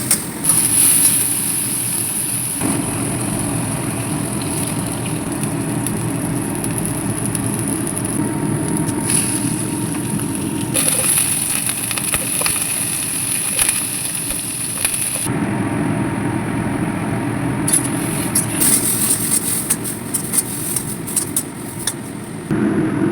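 Food sizzling and crackling as it is stir-fried in a hot pan, a steady hiss with scattered ticks.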